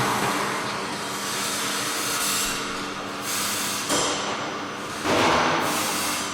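Construction machinery running steadily with a low hum, with sharp bursts of hissing, like released air or steam, about four and five seconds in.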